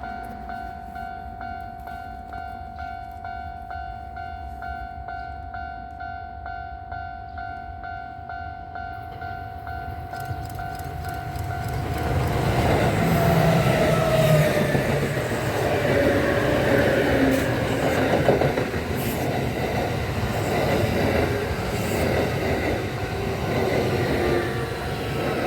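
Level-crossing warning bell ringing in a steady repeating pattern. About ten seconds in, a ten-car Kintetsu electric train (1233, 8000 and 9020 series sets coupled) approaches, then passes the crossing loudly from about twelve seconds, with wheel and motor noise over the bell.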